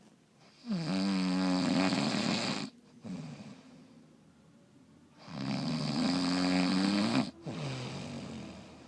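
Loud snoring: two long snores of about two seconds each, a few seconds apart, each trailing into a shorter, quieter breath.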